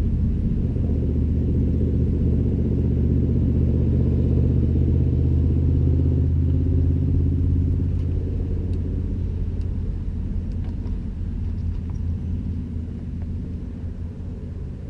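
A steady low engine rumble that fades slowly over the second half, with a few faint clicks near the end.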